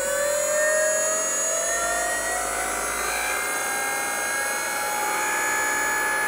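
Brushless motor for a mini-lathe conversion spinning up under its ESC with a rising whine, levelling off about three seconds in and then running steadily at speed.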